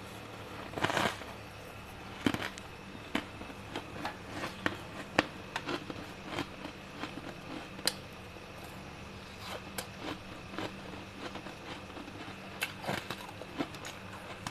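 Soft, slightly crunchy freezer frost being crunched in irregular sharp crackles and crunches, with a longer crunch about a second in and another near the end, over a steady hum.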